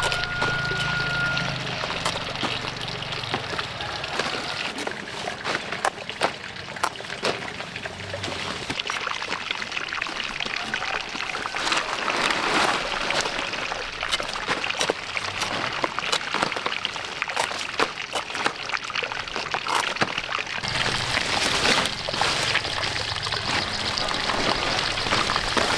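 Leaves rustling and short, crisp snaps and cuts as kohlrabi stalks are chopped with a large knife and the bulbs pulled and dropped into a bamboo basket, over a steady hiss. A brief whistled note sounds right at the start.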